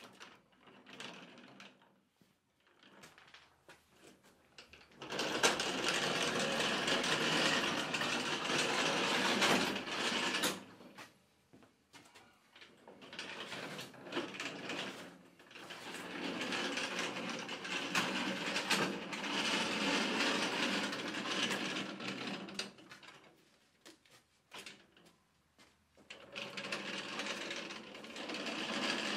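Mover's dolly casters rolling over a concrete floor under a heavy 42-inch two-stage snowblower. It comes in three pushes of several seconds each, with short pauses between.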